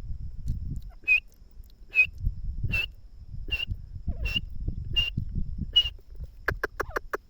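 Francolin (teetar) calling: seven short, sharp notes spaced evenly about three-quarters of a second apart. Near the end they give way to a fast run of notes. A low rumble lies underneath.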